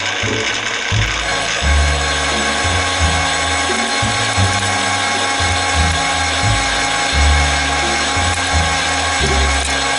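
Bernardo Hobby 500 metal lathe running under cut, its gearing giving a steady whine while the tool turns a round metal backplate. Background music with a bass line plays along.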